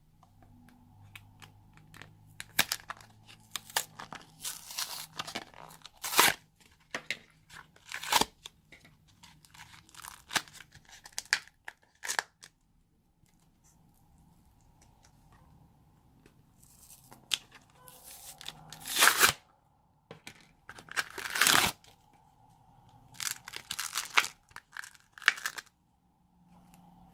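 Slime being squeezed, stretched and folded by hand, crackling and popping in irregular bursts with short pauses between. The loudest bursts come about two-thirds of the way through.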